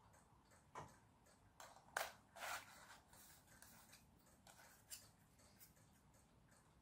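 Quiet handling noise of thin 3D-printed PLA puzzle pieces: a few short plastic clicks and taps, the sharpest about two seconds in. A faint regular ticking runs underneath.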